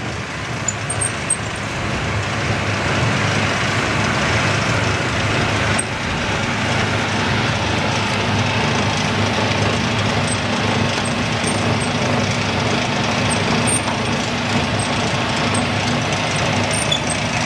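Automatic dumpling-making machine running, a steady mechanical noise with a low motor hum as it forms and drops filled dumplings. The noise builds over the first couple of seconds and then holds steady.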